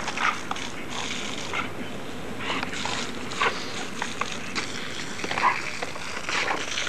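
A garden hose sprays steadily with a hiss while a dog bites at the water jet, making irregular short wet snaps and splashes.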